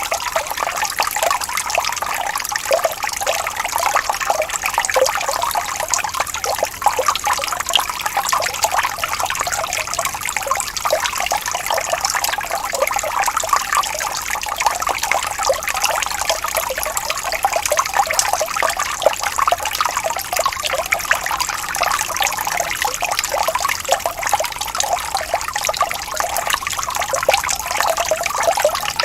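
A gently rippling stream: water running and babbling steadily, a dense, even patter of small splashes without any deep rumble.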